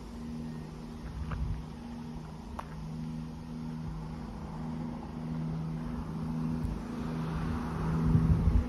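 Class 170 Turbostar diesel multiple unit approaching from a distance: a steady low engine drone that grows louder near the end.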